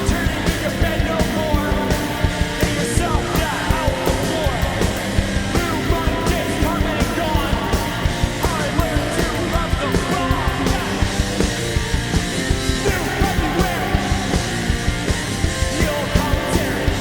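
Punk rock band playing loud, with distorted guitars, a steady driving drum beat and yelled vocals.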